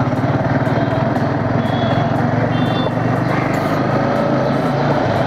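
Sport motorcycle's engine running steadily under the rider at low street speed, with an even pulsing drone.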